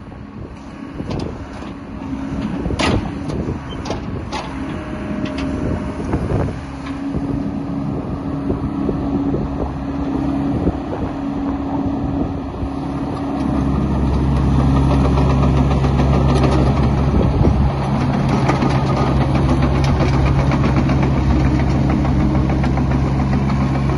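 A Yanmar 4TNV98C four-cylinder diesel engine running in a small excavator. The first half is uneven, with a few sharp knocks. About halfway through the engine settles into a steady, louder drone.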